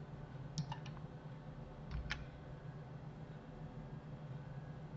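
A few faint clicks of computer keys and mouse buttons, about half a second in and again near two seconds, over a low steady hum.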